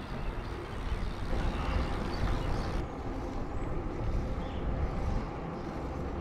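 Riding an e-bike along a paved trail: wind rumbling on the camera microphone over steady tyre noise.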